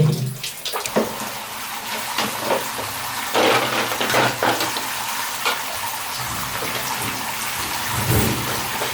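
Tap water running steadily into a bath, with a few splashes.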